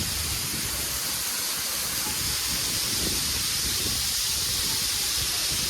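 Steady rushing hiss of a waterfall's falling water.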